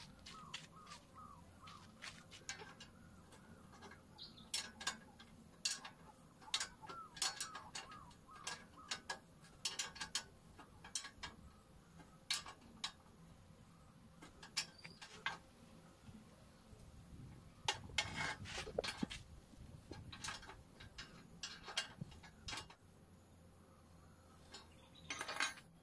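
Irregular metallic clicks and clinks of a wrench working the bolts and rods of a cast-iron Singer treadle sewing machine stand, with a denser run of knocks about two-thirds of the way in.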